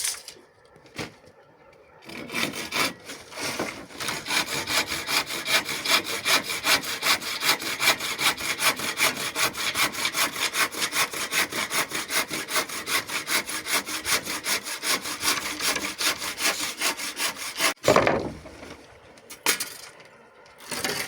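Hand saw cutting through timber in rapid, even back-and-forth strokes for about fifteen seconds, stopping near the end with a brief louder scrape.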